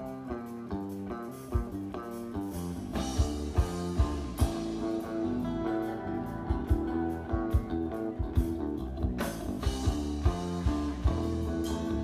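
A live band playing an instrumental passage: guitar and bass lines, with drum kit beats that come in early and settle into a steady rhythm.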